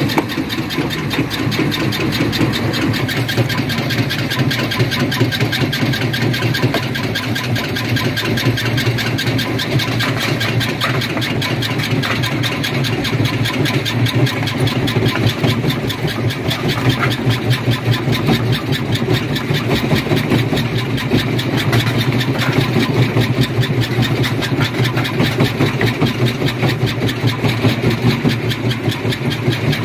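Stone crusher running: a steady, rapid mechanical rattle over a low hum.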